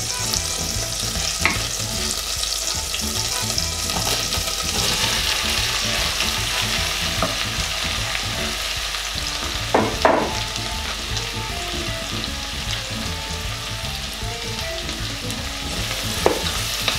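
Sliced onions sizzling in melted butter in a stainless steel saucepan while being stirred with a wooden spoon: the start of frying them until golden. The sizzle is steady, with a few louder knocks, the loudest about ten seconds in.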